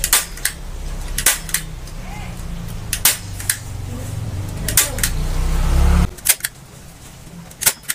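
Hand staple gun firing staples into used car-tyre rubber: about a dozen sharp snaps, often two in quick succession. Beneath them a low hum grows louder and stops abruptly about six seconds in.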